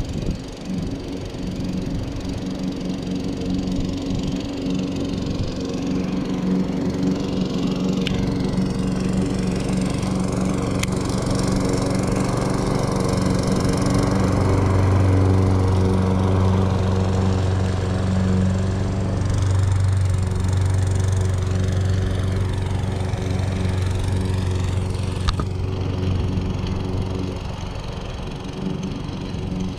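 Walk-behind gas lawn mower running close by, a steady engine hum that grows loudest around the middle as the mower passes nearest and fades toward the end.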